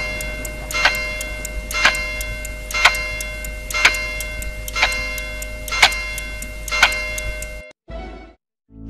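Countdown-timer sound effect: a sharp, ringing metallic tick once a second, with lighter, faster ticks in between. It cuts off suddenly shortly before the end, followed by a brief short sound and a moment of silence.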